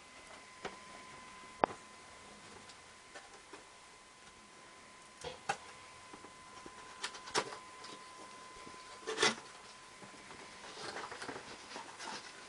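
Handling noises: scattered sharp clicks and taps with short rustles and scrapes, the loudest click a little over a second in and a longer scrape about nine seconds in, over a faint steady high tone.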